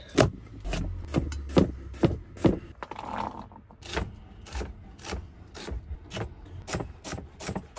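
Kitchen knife chopping carrot and then celery on a plastic chopping board: a run of sharp knocks, about two a second.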